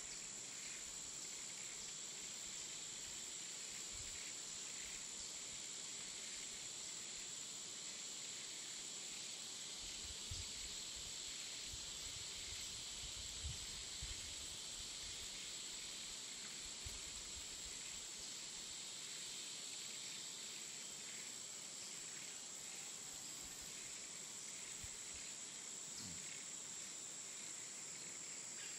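Forest ambience dominated by a steady, high-pitched drone of insects, with a few soft low thumps in the middle.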